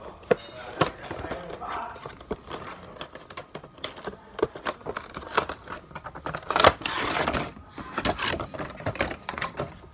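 A Funko Pop cardboard box being opened by hand: cardboard flaps and the insert scraping and clicking, then the figure's plastic wrapping crinkling. The loudest crinkling comes about two-thirds of the way through.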